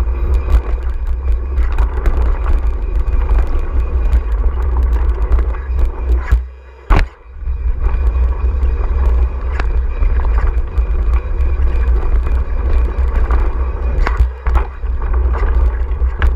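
Downhill mountain bike ridden fast over a dirt trail, with heavy wind buffeting on a bike-mounted or helmet-mounted action camera, tyre roar and frequent clicks and rattles from the bike. About six and a half seconds in the noise drops off for about a second, ending in a sharp knock.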